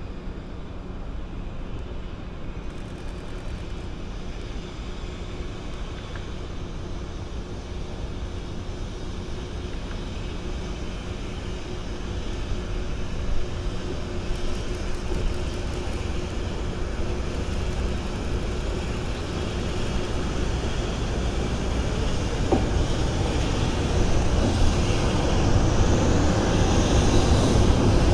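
A JR Freight EH200 twin-unit electric locomotive running light with no train behind it, approaching and growing steadily louder. Its wheel-on-rail noise swells as it draws close near the end.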